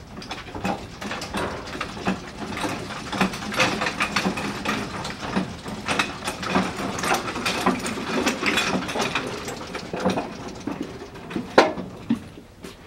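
Hand-cranked mobile compact library shelving being wound along its floor tracks: the handle's gearing and the rolling carriages make a steady run of irregular clicks and rattles, with one sharp knock near the end.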